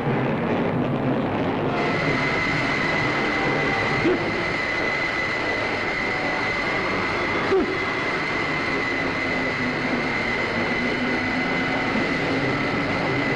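Film sound effect for a monster's jet of white spray: a loud, steady rushing hiss, joined about two seconds in by a high held whistling tone.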